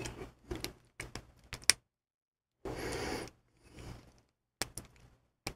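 Lock picks working in a small Master Lock No. 7 padlock: sharp metallic clicks and scratchy scraping as the pick and tension tool work the pins, in short separate spurts with gaps between.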